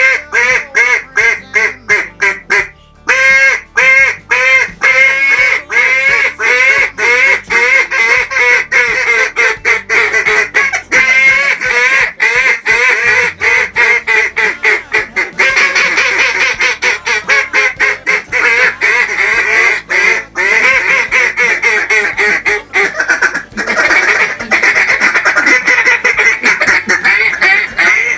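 Two hand-blown duck calls sounding together in a calling routine, imitating mallard hen quacks: a string of evenly spaced quacks, about three a second, with a short break near the start, then a fast, almost unbroken run of quacks and chatter for the rest of the time.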